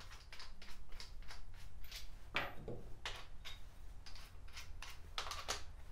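Small tools and fittings being handled on a plywood workbench: a run of short clicks and knocks, strongest about two and a half seconds in and again near the end.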